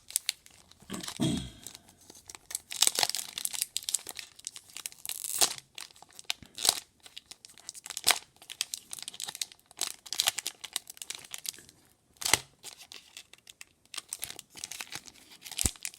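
Foil trading-card booster pack being crinkled and torn open by hand, in repeated short rips and crackles.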